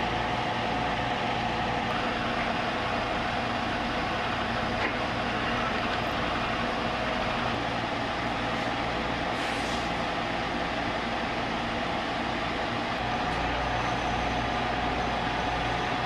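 Vertical milling machine running, a steady machine noise with a constant mid-pitched whine and no change in level.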